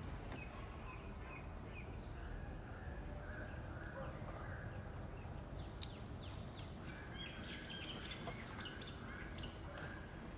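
Birds chirping and calling in the background over a low steady hum, with one small sharp click about six seconds in.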